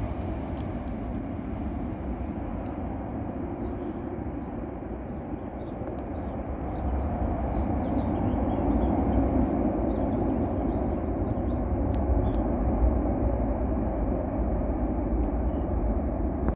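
Steady distant rumble of a Boeing 747's four jet engines as the airliner slows on the runway after landing, growing louder about seven seconds in.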